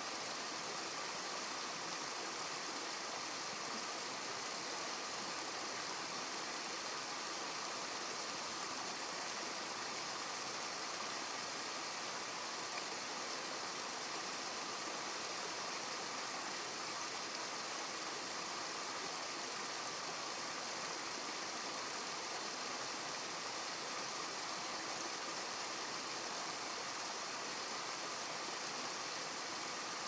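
Steady rush of stream water spilling over a low weir, an even hiss with no change in level.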